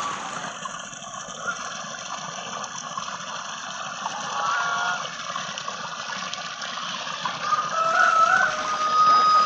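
Domestic geese giving short, pitched calls, once about four seconds in and again near the end, over a steady rush of running water.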